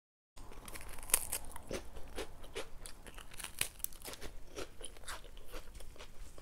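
Close-up crunching and chewing of a cracker with toppings, a continuous run of sharp crunches, heard close through a lavalier mic. It begins with a brief moment of dead silence, then the crunching starts.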